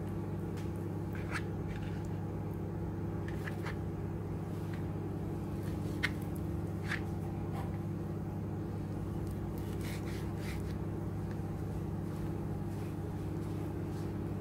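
Steady low electrical hum from an appliance, with scattered soft taps and scrapes of a kitchen knife on a plastic cutting board as raw salmon is sliced and handled.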